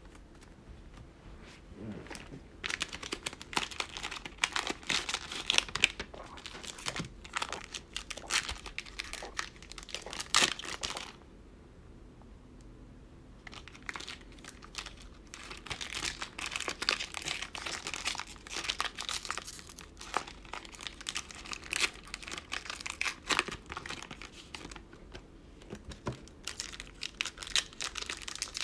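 Plastic foil wrappers of 2020 Panini Mosaic football card cello packs being torn open and crinkled by hand. Dense crackly rustling starts about two seconds in, pauses for a couple of seconds near the middle, and then resumes.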